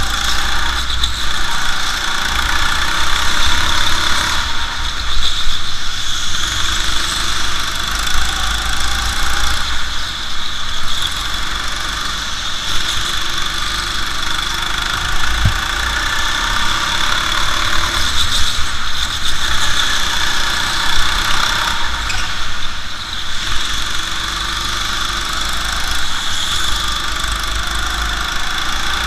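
Go-kart engine running hard through a lap, its pitch and loudness rising and falling every few seconds as the kart accelerates and backs off through the corners, with a steady high whine above it.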